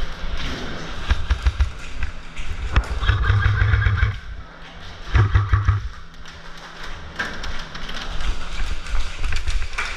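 Airsoft rifles firing two bursts, the first about three seconds in and lasting roughly a second, the second about five seconds in and shorter, with scattered taps and thuds throughout.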